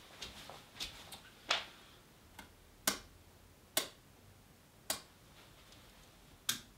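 A quiet room with a run of sharp, bright clicks, mostly about a second apart, and a few fainter soft clicks and knocks in the first couple of seconds.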